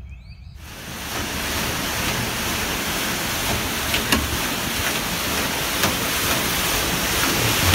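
Homemade PTO-driven concrete mixer at work, a tractor power take-off turning a large auger that churns concrete inside a propane tank: a steady, loud rushing noise with a low rumble and a few sharp clicks. It starts abruptly about half a second in.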